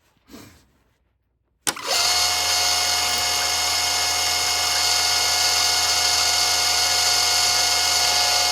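A small handheld electric power tool switches on with a click about two seconds in, and its motor then runs steadily at one constant speed.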